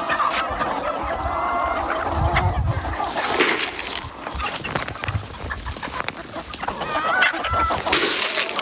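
A flock of free-range farm chickens clucking, many short wavering calls overlapping, with scattered sharp knocks and rustles, loudest about three seconds in and near the end.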